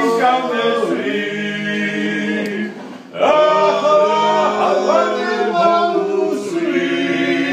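Men singing a cappella in several parts, in the manner of a Georgian polyphonic table song: a low voice holds a steady drone while the upper voices move above it. The singing breaks briefly between phrases about three seconds in, then goes on.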